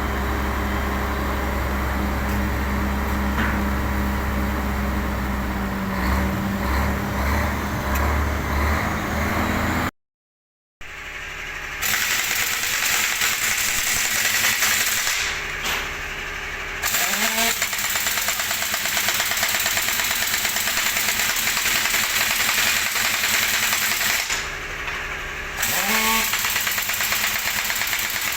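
Heavy truck engine running: a steady low hum, then, after a break, a louder rattling run in which the engine pitch briefly rises twice.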